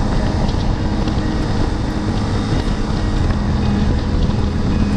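Motorcycle cruising steadily at about 90 km/h, its engine running under heavy wind rush on the microphone.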